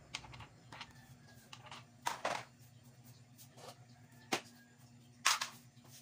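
Scattered plastic clicks and knocks from washing machine parts being handled during disassembly, a few sharp hits with the loudest near the end, over a faint steady hum.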